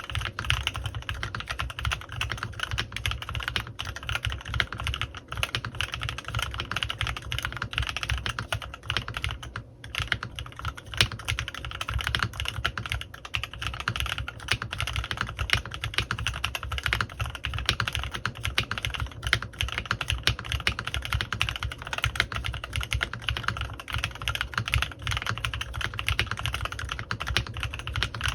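Continuous fast typing on a CannonKeys Rekt1800 mechanical keyboard with lubed Kailh x Swagkeys Lavender prototype switches and PBT keycaps. It is a dense stream of keystroke clacks, with a brief pause about ten seconds in.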